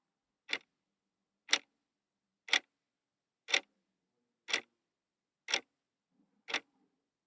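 Clockwork mechanism ticking steadily, one sharp tick a second, seven ticks with silence between.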